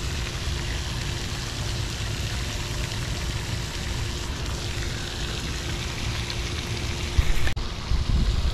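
Steady rushing, water-like hiss from a lake's spray fountain, with wind rumbling on the microphone. Near the end the sound cuts abruptly to heavier, uneven wind buffeting.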